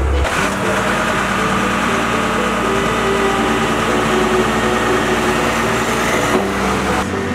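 Motor grader's diesel engine running steadily.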